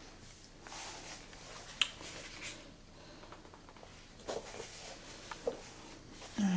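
Quiet handling sounds: soft rustles and a few light clicks and taps, with one sharper tap about two seconds in.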